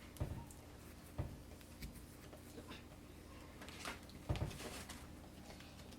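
Kinetic sand being handled and packed into a dinosaur mould: faint scattered soft taps and rustles, the loudest a little over four seconds in.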